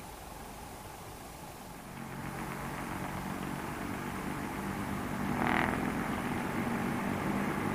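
British Rail first-generation diesel multiple unit approaching with its underfloor diesel engines running, growing louder, with a brief higher-pitched burst about five and a half seconds in.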